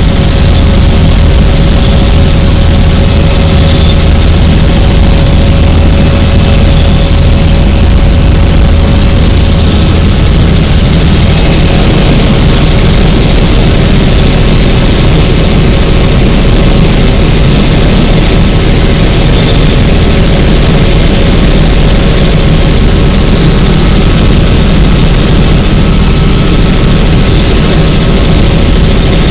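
Helicopter in flight: the turbine engine and rotor run steadily and loudly, with a constant high-pitched turbine whine over a heavy low drone. The low drone changes character about eleven seconds in.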